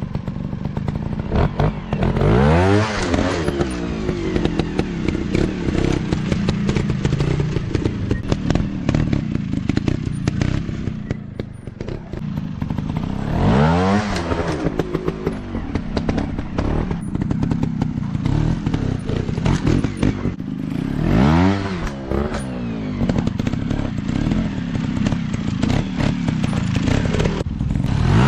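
Trail motorcycle engines running and revving, the pitch climbing and dropping sharply four times.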